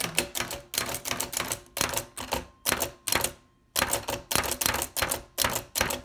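1908 Hammond No. 2 typewriter being typed on, with its hammer striking the paper against the type shuttle. Quick runs of sharp keystroke clicks, several a second, with one short pause about three and a half seconds in.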